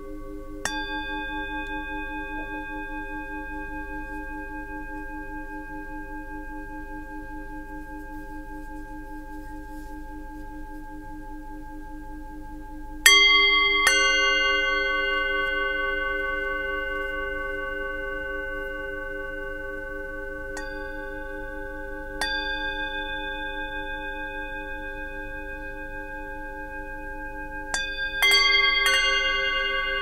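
Singing bowls struck one at a time with a mallet, each ringing on in a long, slowly fading tone with a gentle wavering. A strike comes about a second in, two about halfway, another a little later, and a quick run of three near the end, the notes overlapping.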